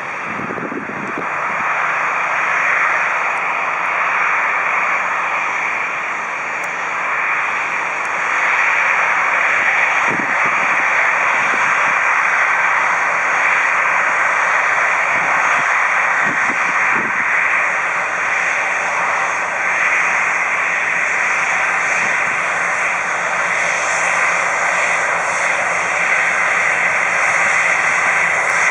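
Four CFM56-5C turbofans of an Airbus A340-300 at taxi power as the airliner rolls along the runway: a steady jet rush with a thin high whine over it, growing a little louder about eight seconds in.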